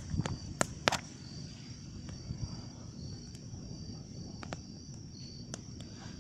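Wood fire crackling, with a scattered handful of sharp pops, the loudest two about half a second and a second in, over the steady high chirping of crickets.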